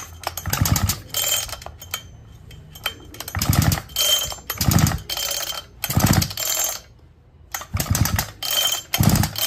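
73cc Falcon petrol chainsaw's recoil starter pulled again and again, cranking the two-stroke engine over without it firing, about one pull a second with a short pause near the end. With the spark plug out, this clears the excess petrol from the flooded cylinder.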